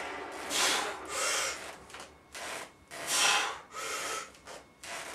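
A weightlifter breathing hard through the mouth while pressing a loaded barbell, a run of short hissing breaths about one a second.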